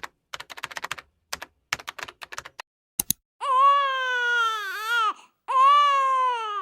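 Rapid clicking of keyboard typing for about two seconds, then a double click, followed by an infant crying twice, each cry about a second and a half long.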